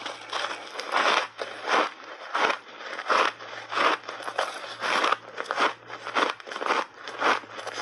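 Close-miked crunching of ice coated in milk powder being bitten and chewed, about two crunches a second.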